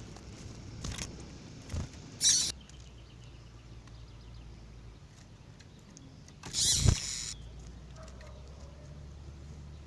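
A female double-collared seedeater (coleiro) giving a short high chirp about two seconds in. A louder rustling burst with a low thump follows near seven seconds.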